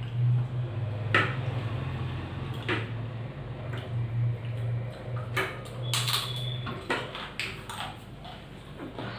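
Clinks and taps of steel plates and bowls as rice is eaten by hand, with a few sharp knocks scattered through, over a low steady hum that stops about seven seconds in.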